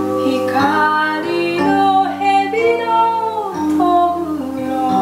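Live folk-style song: a woman singing a gliding melody over held chords on a Korg microARRANGER keyboard.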